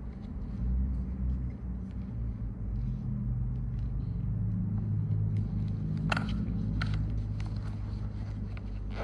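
An engine running with a low rumble, its pitch rising a little between about three and five seconds in, with two sharp clicks a little after six and seven seconds in.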